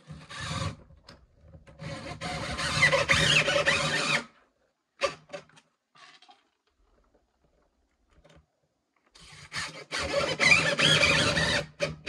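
DeWalt cordless drill-driver running under load, driving screws through a plastic L-bracket into the floor to fix down a toilet pan. A short burst at the start, then two runs of two to three seconds each, with a quiet gap and a few clicks between them.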